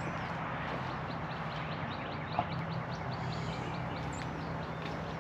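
Outdoor ambience: a steady low hum under a rapid, even series of high chirps, about five a second, from a small animal. A single click sounds about two and a half seconds in.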